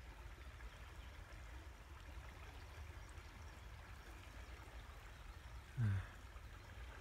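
Fast-flowing river water rushing steadily and faintly over a low rumble. About six seconds in, a man's brief voice sound falls in pitch.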